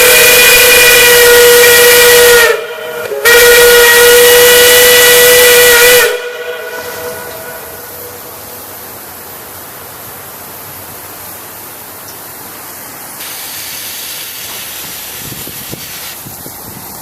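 Large industrial whistle blowing a loud, steady, full-toned blast over a strong rushing hiss. It breaks off briefly about two and a half seconds in, sounds again, then cuts off about six seconds in, leaving only quieter background noise.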